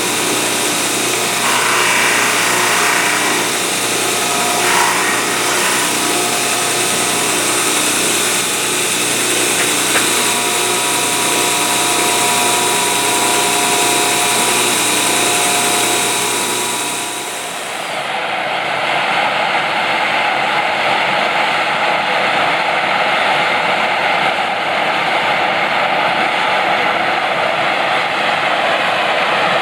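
An electric power tool runs steadily, the kind of grinding or polishing work done on metal. A little over halfway through the sound changes abruptly and loses its highest hiss.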